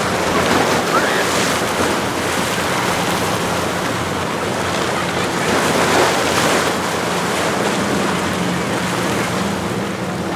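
Rough inlet water sloshing and breaking, swelling in two surges, with wind buffeting the microphone. Under it runs the steady low hum of a rigid inflatable boat's outboard motor, a little stronger near the end.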